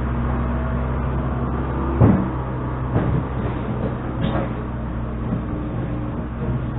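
An engine running at a steady speed, with a few short clunks about two, three and four seconds in, typical of machinery moving dirt.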